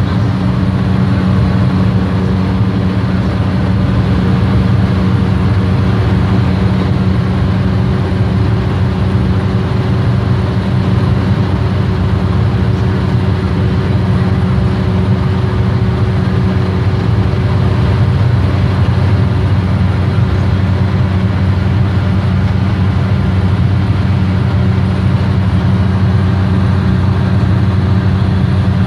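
Cessna 208 Caravan's single turboprop engine and propeller droning steadily in flight, with a strong low hum that stays even throughout.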